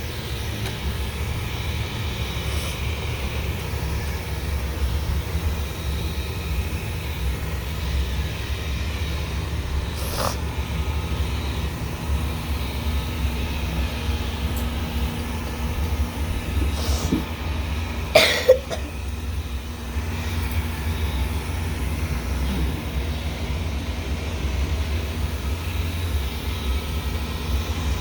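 Wyze robot vacuum running, a steady low motor hum and rumble, with a few faint clicks and one short, sharp louder sound about two-thirds of the way through.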